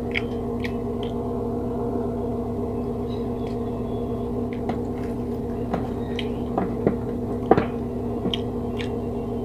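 Close-up eating sounds: chewing with scattered small wet clicks and smacks from mouth and fingers, the loudest a little past the middle. A steady hum of several fixed tones runs underneath.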